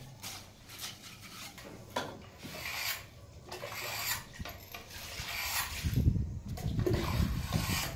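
Gritty scraping and rubbing of sand-cement mortar being worked in behind a granite stair riser, with a louder low rumbling in the last two seconds.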